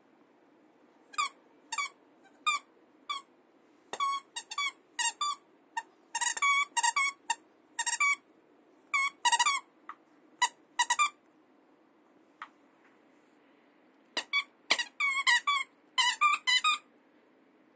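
Squeaker in a dog's rope chew toy squeaking over and over as a puppy chews it: short, high squeaks in quick runs, with a pause of a couple of seconds about two-thirds of the way through.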